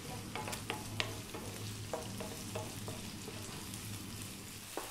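Sliced onions sizzling in olive oil in a non-stick frying pan on a fairly high heat, stirred with a wooden spoon that taps and scrapes the pan in short, irregular clicks, over a steady low hum.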